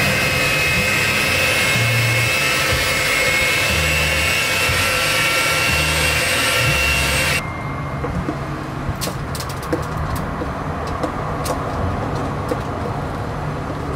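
Electric hand mixer running steadily with a whine, its beaters churning batter in a stainless steel bowl, switched off abruptly about seven seconds in. After that come scattered light clicks and knocks as the batter is scraped out of the metal bowl into a foil-lined loaf pan.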